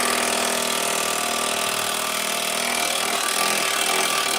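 Cordless impact wrench running steadily on a tractor wheel nut, a dense continuous hammering buzz.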